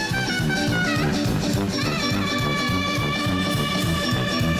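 Live brass band playing an upbeat number: saxophones and trumpet over drums, sousaphone and electric guitar, with a steady beat. About two seconds in the horns slide up into long held notes.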